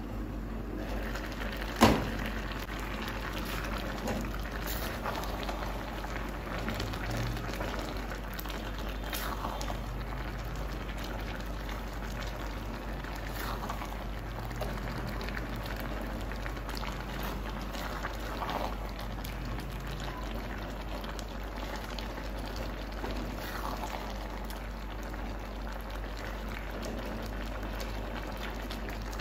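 Beans and plantain porridge bubbling as it simmers in a pot, with one sharp knock about two seconds in. Later it is stirred now and then with a silicone spatula.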